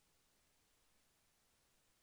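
Near silence: only a faint, even hiss of the recording's noise floor.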